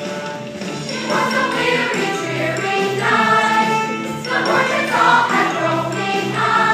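A group of voices singing together over instrumental accompaniment, the voices coming in strongly about a second in.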